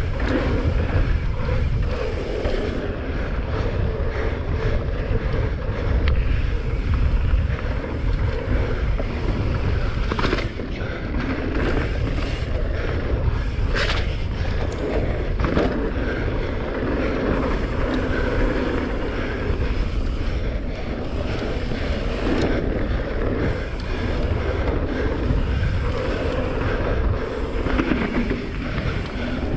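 Revel Rail 27.5 mountain bike descending a dirt trail: tyres rolling over dirt and the bike rattling, with wind buffeting the microphone. Several sharp knocks from hitting bumps come about a third to halfway through.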